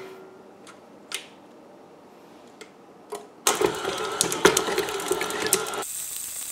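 A few light clicks, then about three and a half seconds in an electric stand mixer starts, its flat beater creaming sticks of butter in a steel bowl. Its sound changes shortly before the end.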